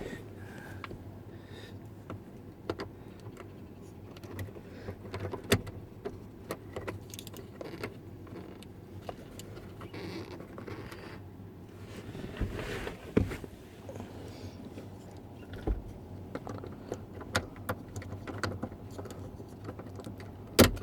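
Scattered clicks, taps and knocks of small plastic and metal parts being handled and fitted into a pickup truck's door-jamb switch, with a low steady hum underneath. A cluster of knocks comes a little past halfway, and a sharp click near the end.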